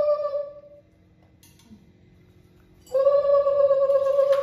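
Conch shell (shankha) blown in long, steady blasts for the puja: one blast fading out about a second in, then after a pause a second blast starting near the end.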